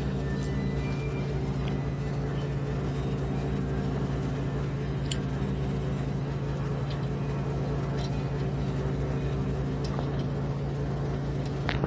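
A steady low mechanical hum, unchanging throughout, with a few light clicks of small parts being handled.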